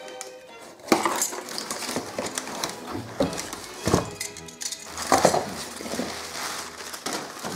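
A cardboard box slit open with a box cutter, then crumpled packing paper rustled and pulled out. Several sharp knocks and crinkles come from the handling.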